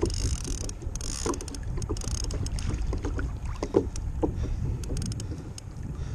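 Wind buffeting the microphone over water slapping against a kayak hull in choppy sea, with scattered small knocks and clicks.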